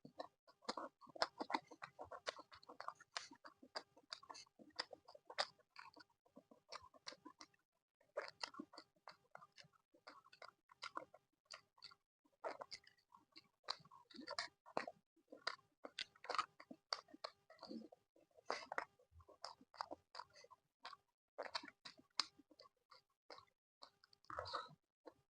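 Close-miked mouth sounds of chewing laddu peethi, fried lentil fritters with chutney: a dense run of wet clicks and crunches, pausing briefly about a third of the way through and again near the middle.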